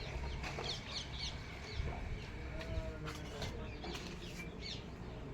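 Birds chirping in many short, quick high notes, over a steady low rumble.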